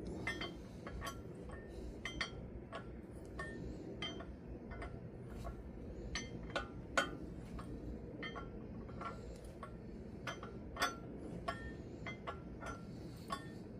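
Ratchet wrench clicking irregularly, about two or three clicks a second, as the hub bolts are cranked down by hand on a Farmall 450 tractor; a faint metallic clink now and then.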